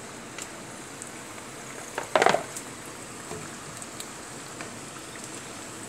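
Chicken wings deep-frying in hot oil, a steady sizzle with small crackles and pops. About two seconds in, a utensil scrapes and clatters briefly and loudly against the pan.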